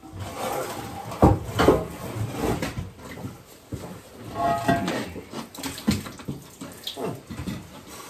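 Old steam boiler sections knocking as they come apart, with a couple of sharp knocks about a second in, and boiler water spilling and splashing out.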